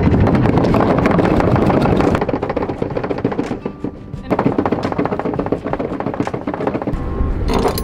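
A catamaran's electric anchor windlass paying out anchor chain, the chain clattering and knocking as it runs through the gypsy. It drops away briefly around the middle, then runs again.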